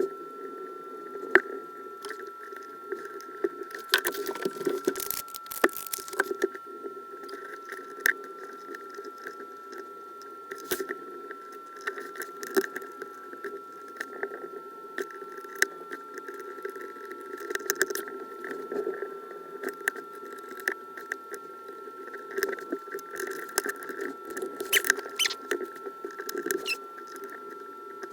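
Small irregular clicks, taps and light scrapes of tiny electronic parts and small screwdrivers being handled while an iPod Classic is worked on, over a steady electrical hum and a thin high whine.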